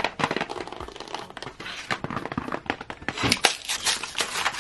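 A stiff plastic blister pack with a cardboard backing being cut and prised open. The plastic crackles and crinkles in quick, irregular snaps that get louder about three seconds in.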